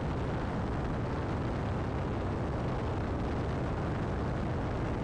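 Piper Aztec twin-engine airplane in cruise flight: a steady low engine drone under a constant rush of wind noise, as picked up by a camera mounted outside on the airframe.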